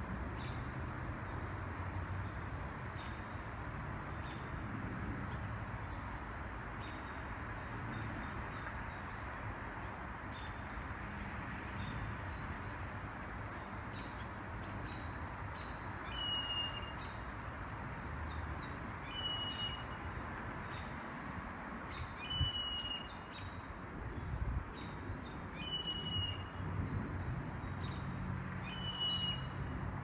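Blue jay calling: five short, clear single-pitched calls, one about every three seconds, starting about halfway through, over a steady background hum.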